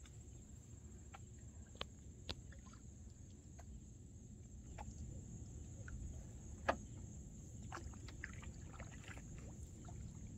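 Canoe being paddled on calm water: a faint low rumble with scattered light clicks and knocks of paddle and water against the hull. The sharpest knock comes about two-thirds of the way through.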